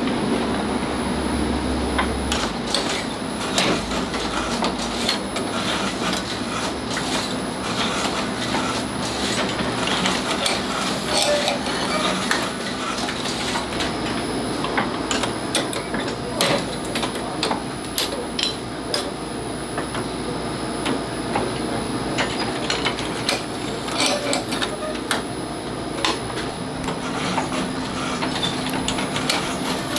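Automatic walnut-cake baking machine running, its hinged cast-iron mould plates clicking and clanking over and over as they move along the conveyor, over a steady machine hum.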